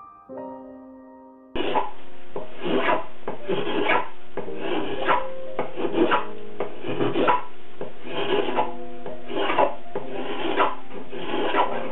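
Hand-held carving blade shaving a wooden guitar plate, in repeated scraping strokes about one or two a second, each lifting a curl of wood. Soft piano notes play for about the first second and a half, then the carving cuts in suddenly.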